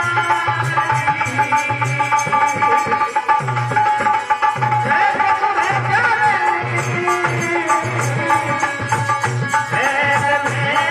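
Live Indian folk music. A tabla-style hand drum keeps a steady repeating beat under steady held tones, and a voice sings over it around the middle and again near the end.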